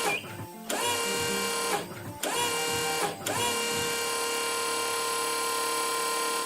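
Small electric motor whining in repeated runs, like a power drill. Each run spins up with a quick rise in pitch and holds a steady tone. The last run lasts about three seconds and then cuts off.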